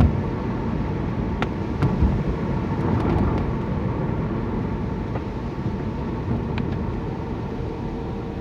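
A car being driven, heard from inside the cabin: a steady mix of engine and road noise, with a few faint clicks.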